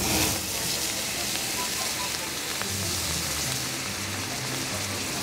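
Soy-based sukiyaki sauce poured into a hot cast-iron pan of onion and scallion on an induction cooker, sizzling and steaming as it hits the metal. The sizzle is sharpest in the first moment, then settles to a steady hiss.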